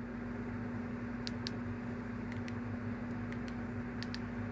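Steady low electrical hum with room noise, with faint short high ticks coming in pairs about once a second.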